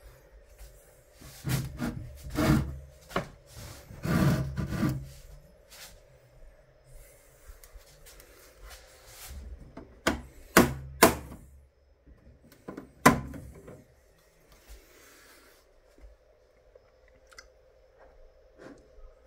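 Plastic cricket enclosures being handled: rubbing and scraping of plastic for the first few seconds, then three sharp clicks about ten to thirteen seconds in as a small clear plastic container and the mesh lids are moved and set down.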